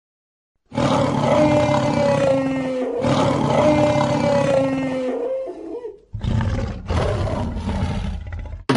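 Dinosaur roar sound effects made for Carcharodontosaurus: two long roars, each with a held pitched tone that sinks slightly, then a deeper, rougher roar near the end.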